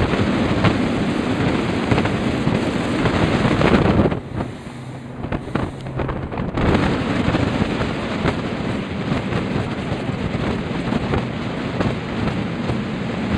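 Wind buffeting the microphone and water rushing past as a rigid inflatable boat runs at speed. About four seconds in the rush drops away for two seconds or so, leaving a low steady engine hum, then comes back at full strength.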